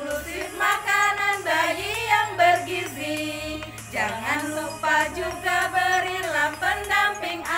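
A group of women singing an Indonesian song together over a backing track with a steady, regular beat.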